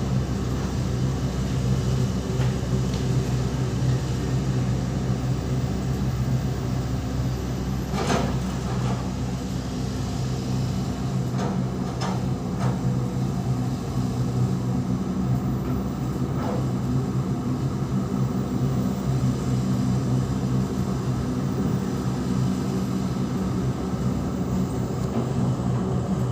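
Excavator's diesel engine running steadily under load, with a few brief sharp sounds over it around the middle.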